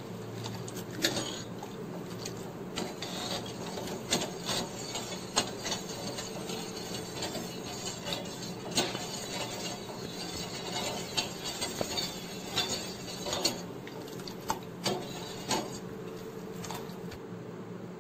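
Steel ladle clinking and scraping against a stainless steel pot while stirring boiling syrup: irregular clinks throughout, over a steady low hum.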